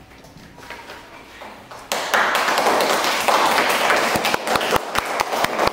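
A group of children clapping their hands, breaking out suddenly about two seconds in as a dense patter of claps after a few light taps.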